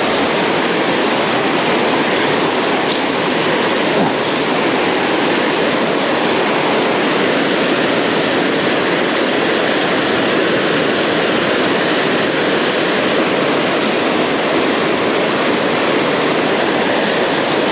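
River rapids: heavy current rushing over a rocky ledge, a loud, steady rush of white water.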